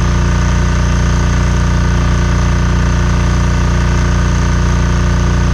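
Steady, unchanging machine hum with a strong low drone and several steady overtones, like an engine running at idle.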